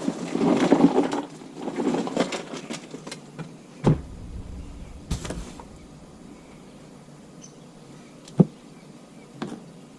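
Handling noise: a couple of seconds of rustling and scraping, then a few separate sharp knocks spread over the rest.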